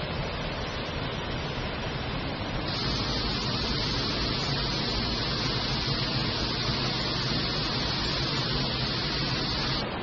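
Steady rushing water of a waterfall plunging into a pool. About three seconds in it becomes louder and more hissy, and near the end it drops back.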